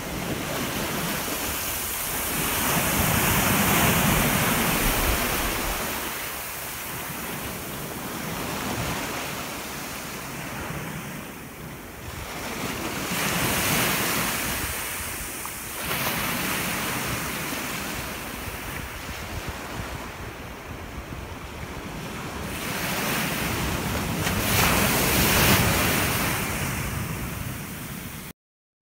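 Sea waves washing in, the surf noise swelling and fading three times, with wind buffeting the microphone. The sound cuts off abruptly near the end.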